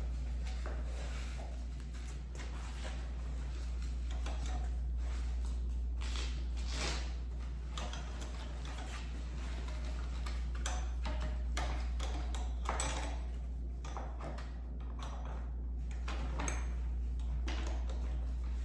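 Scattered clicks, knocks and rustles of plastic and fabric animatronic parts being handled and fitted together, over a steady low hum.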